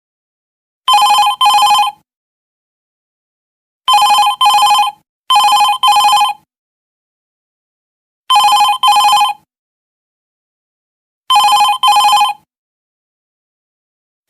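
Office telephone ringing in short double rings, five times, with pauses of about one and a half to three seconds between them.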